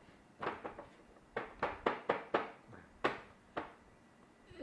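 A baby slapping his hands on the top of a box-like toy: about ten sharp, irregular slaps, several coming in a quick run in the middle.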